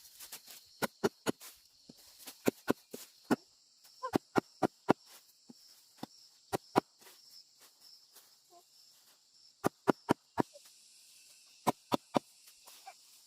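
A steady high-pitched insect chorus, with many sharp, irregular clicks and snaps over it, some coming in quick clusters of two or three.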